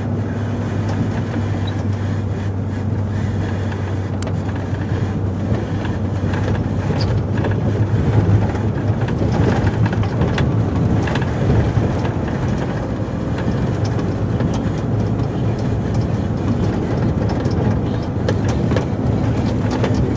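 Volvo FH 440 plow truck's diesel engine running steadily, heard from inside the cab, under rumbling tyre and plow noise from the snowy road. From about seven seconds the rumble grows louder and rougher, with scattered sharp knocks.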